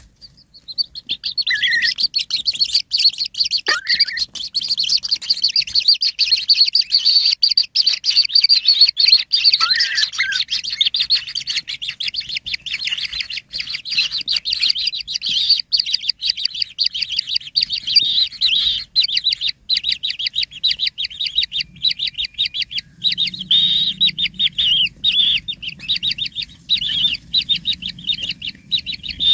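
Kingfisher nestlings begging: a continuous, rapid stream of high-pitched chirps that runs without a break.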